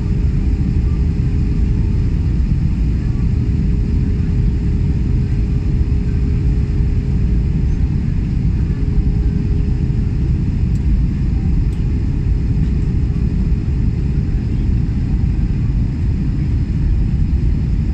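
Cabin noise inside an Airbus A320-family airliner on its landing approach: a steady low rumble of the jet engines and rushing air, with a steady hum running through it.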